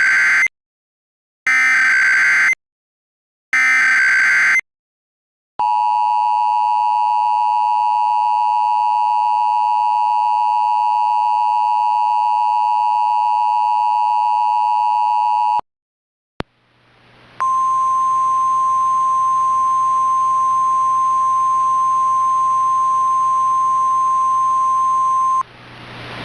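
Emergency Alert System tornado-warning tones. Three one-second bursts of screeching SAME header data come first, then the two-tone attention signal held for about ten seconds. After a click, a single steady weather-radio alert tone plays over hiss for about eight seconds.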